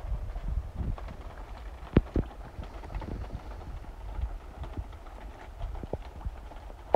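Footsteps on wood-chip mulch with handling noise on the microphone, scattered light knocks, and two sharp knocks about two seconds in.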